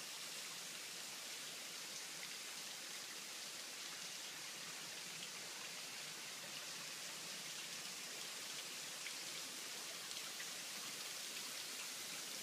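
Steady, soft hiss of a thin waterfall spilling and splashing down a rock face, with a few faint drip-like ticks.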